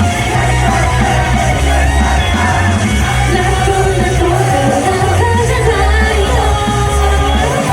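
Live J-pop idol song over the venue's PA, with a sung vocal line over a heavy bass beat.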